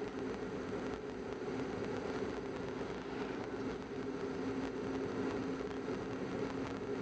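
Steady engine and road noise of a car driving at a constant speed, heard from inside the cabin, with a low even drone and a hiss of tyre noise.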